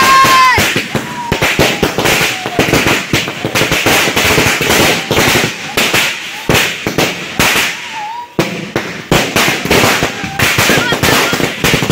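Firecrackers going off in rapid succession: a dense run of irregular sharp cracks and bangs, easing briefly about eight seconds in before picking up again.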